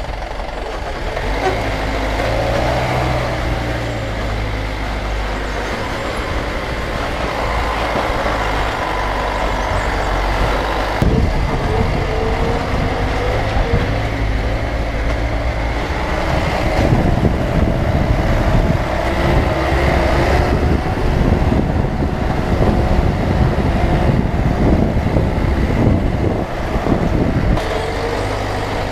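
A motor vehicle's engine running as it is driven, its pitch slowly rising and falling, with many short knocks and rattles through the second half.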